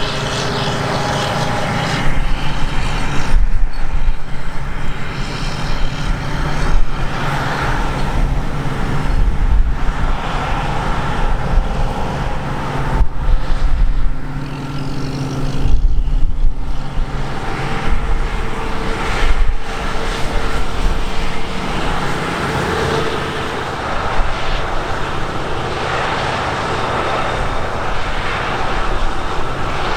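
Heavy diesel harvest machinery, combine harvesters and tractors, running steadily under load, with a low engine hum and broad mechanical noise, broken by sudden short drops every few seconds.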